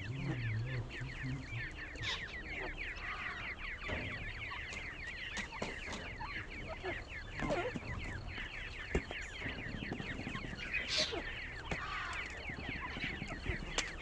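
Grey francolin chicks peeping continuously: a dense stream of rapid, high, downward-sliding cheeps, with a few louder calls about two seconds and eleven seconds in.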